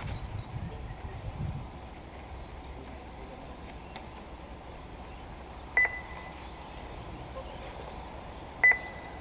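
Two short electronic beeps, about three seconds apart, the first a little longer than the second.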